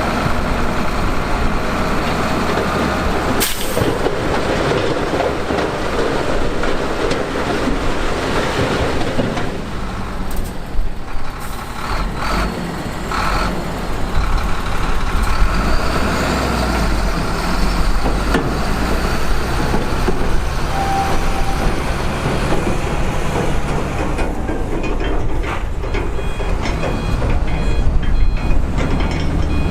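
Heavy diesel construction machinery running and working, with occasional sharp knocks. A reversing alarm starts beeping near the end.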